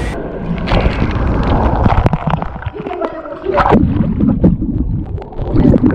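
Water splashing and gurgling as people swim through a sea cave, with irregular knocks and clicks, close on the microphone.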